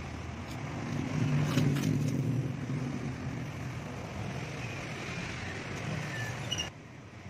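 A motor vehicle running in the background, its low rumble swelling about a second in and then easing off, with a few faint clicks over it. The whole sound drops away abruptly near the end.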